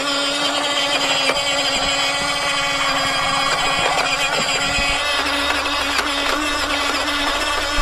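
Battery-powered toy dump truck driving along concrete, giving off one steady, unchanging whir.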